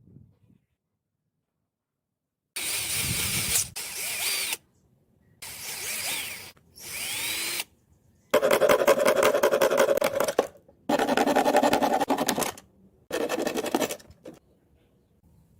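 Small electric motor running in about six short bursts of one to two seconds each, starting and stopping abruptly; the last three have a steady buzzing hum.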